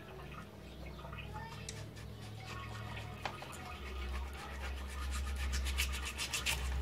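Kitchen knife sawing back and forth along a striped bass fillet on a plastic cutting board, cutting the meat from the skin. It makes a rapid, rhythmic scraping that grows louder in the last few seconds, over a low hum.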